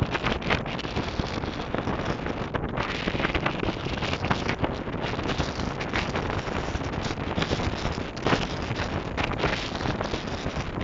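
Strong wind blowing over the camera microphone: a constant rough rush of wind noise broken by frequent short gust buffets.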